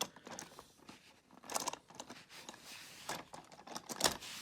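Handling noises of plastic toy train parts: scattered light clicks and rustles as the battery tender's plug is fitted to the locomotive, with a sharper click about four seconds in.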